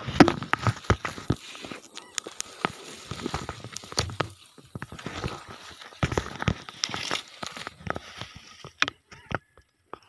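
Close rustling and crackling with scattered sharp clicks and knocks: grass stalks and handling noise rubbing against the microphone as the camera is moved, stopping abruptly at the end.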